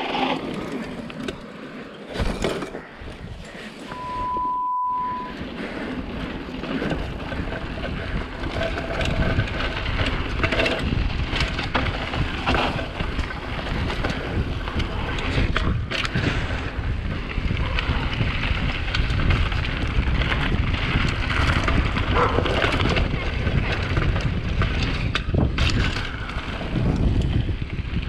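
Wind buffeting a GoPro's microphone during a mountain-bike ride, with tyre and bike noise over rough ground. About four seconds in, a one-second beep replaces the sound.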